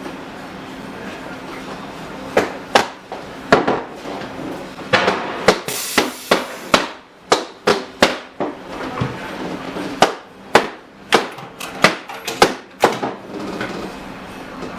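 An irregular series of about fifteen sharp knocks or clicks over some ten seconds, starting about two seconds in, over a steady background hum.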